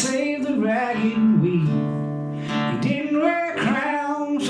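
A man singing a country song live, accompanied by a strummed acoustic guitar.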